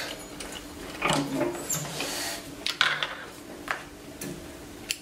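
Cotton muslin rustling as it is handled and pulled out from under the presser foot of an idle industrial sewing machine, in a few short scuffs, with several light clicks and knocks over a steady low hum.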